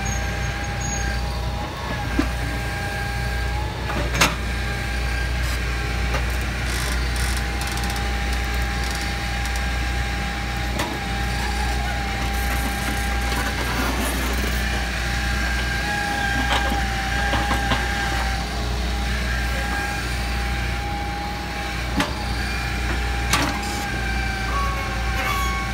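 Hitachi hydraulic excavator working, its diesel engine running steadily under load with a steady high whine over it while it digs soil. A few sharp knocks stand out, the loudest about four seconds in and again near the end.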